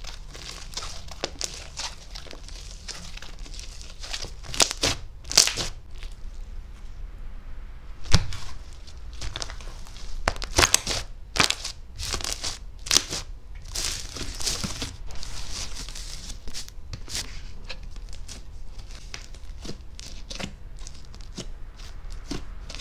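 Butter slime being squished and stretched by hand, giving dense, irregular crackling and clicking with a few louder pops.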